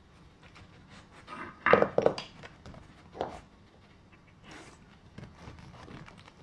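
Parts of a dog puzzle toy knocking and clattering as a dog works at it, with a cluster of the loudest knocks about two seconds in.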